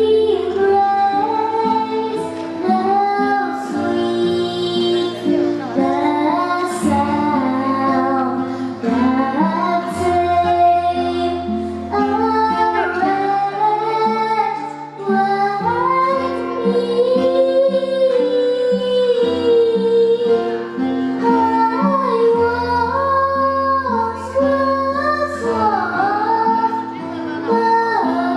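A young female voice singing a song over instrumental accompaniment with sustained bass notes.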